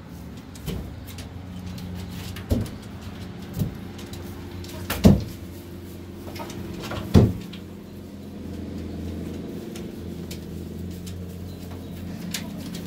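Plastic squeeze duster puffing diatomaceous earth over chickens on their roost: a handful of short dull puffs and thumps, the loudest about five and seven seconds in, over the chickens' low, steady murmuring.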